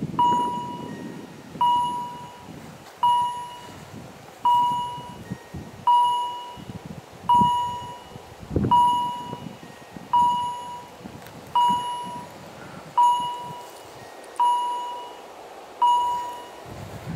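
Level-crossing warning bell ringing steadily, one ding about every one and a half seconds, each fading out: the crossing warning that a train is approaching. A low, uneven rumble runs underneath.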